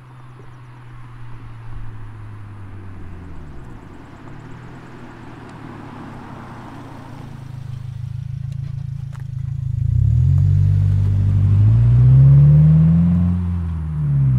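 Subaru WRX's turbocharged 2.4-litre flat-four running through an Invidia N1 cat-back exhaust as the car drives past and accelerates away. The exhaust note grows loud from about two-thirds of the way in, climbing in pitch, then falls briefly near the end before climbing again.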